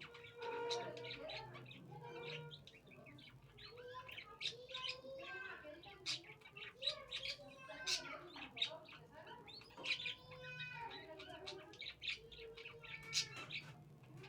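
Small birds chirping and calling over and over, with many quick, sharp notes.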